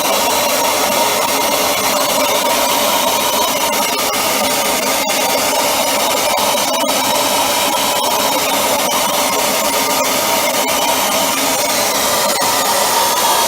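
A steady rush of motor-driven air with an even whine, from a machine being used to clear a blockage of built-up debris from a Dyson DC25 cleaner head.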